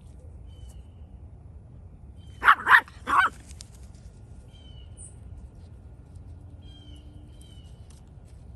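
West Highland Terrier puppy giving three short, high barks in quick succession about two and a half seconds in.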